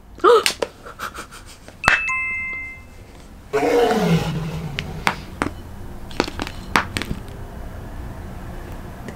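A short bell-like chime rings about two seconds in, followed by a low, drawn-out vocal sound that falls in pitch. Light clicks and taps come from the plastic pudding mould being handled.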